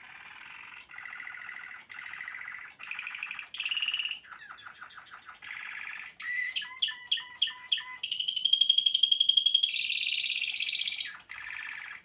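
A male Waterslager Malinois canary singing a long, almost unbroken song of trilled phrases that change every second or two. A run of sharp, separate notes comes about six seconds in, followed by a higher, louder steady trill.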